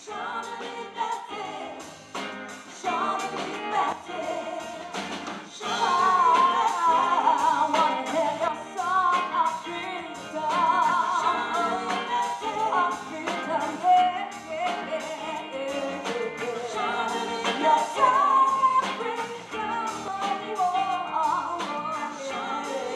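Live gospel song: female voices singing in harmony over electric guitar, bass guitar and a drum kit, the singing growing stronger about six seconds in.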